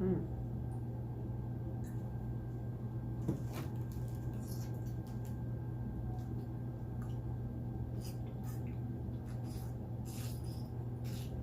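Quiet eating: scattered faint clicks and mouth and handling noises over a steady low hum.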